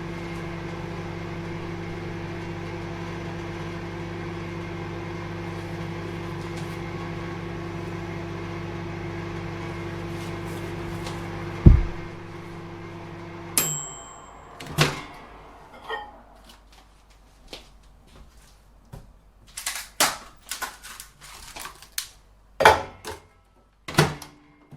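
Microwave oven running with a steady hum. About halfway through there is a loud low thump, then the running stops abruptly with a brief high tone. It is followed by a scattered series of sharp clicks and knocks.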